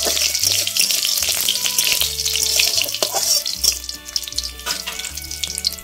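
Whole spices and chillies sizzling and crackling in hot ghee and oil in a metal kadai, stirred with a spatula. The hiss eases a little in the second half.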